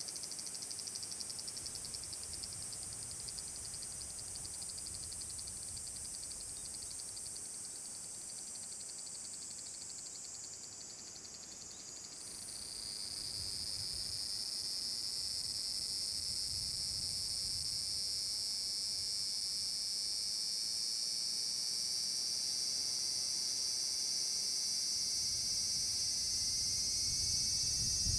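Large brown cicadas (aburazemi) singing a steady, high sizzling drone. About twelve seconds in, a louder song joins, its pitch creeping slowly upward.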